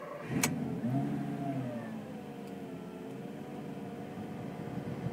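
Lamborghini Gallardo V10 engine starting, heard from inside the cabin: a sharp click about half a second in as it catches, the revs flare up and drop back over the next second or so, then it settles into a steady idle.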